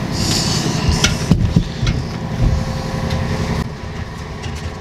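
An engine idling steadily, with a few sharp knocks and a short rattle about a second in.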